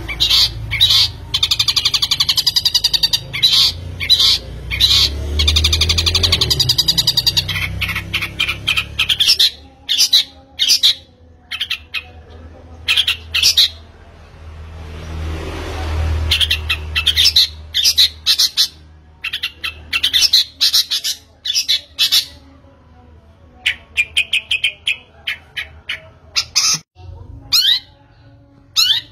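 Birds chirping and squawking, many overlapping calls with rapid trills at first, then scattered chirps. A brief rush of noise comes about halfway through.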